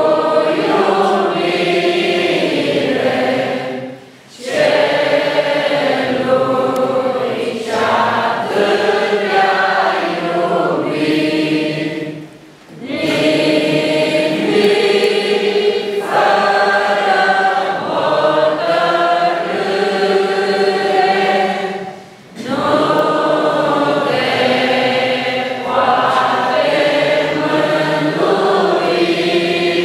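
Church congregation singing a hymn together, line by line, with three short pauses between the sung phrases.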